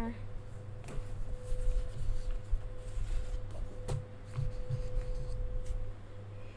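Note paper being handled at a desk, with a few light knocks, over a steady low hum and a faint held tone that stops near the end.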